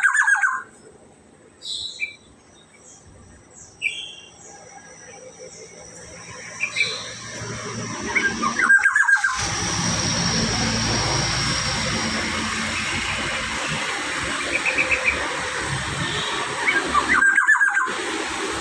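Black-naped oriole calling: a short, harsh squealing call given three times, about nine seconds apart, with thin high chirps between. From about nine seconds in, a steady hiss runs underneath.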